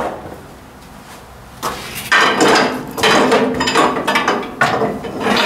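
Hand crank being put on and turned to roll a Ford 800 tractor engine over slowly, with metal clanking and scraping in two spells, the first starting about a second and a half in.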